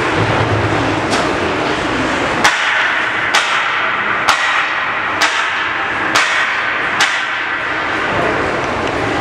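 Six sharp hits, evenly spaced just under a second apart, over steady ice-arena background noise.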